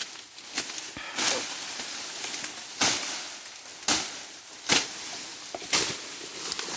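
Grass being cut by hand with a sickle: a rustling swish about once a second.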